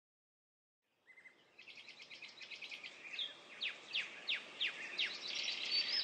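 Birdsong fading in after about a second of silence: a chorus of quick high chirps, joined about halfway through by a run of repeated down-slurred notes, about three a second, growing louder.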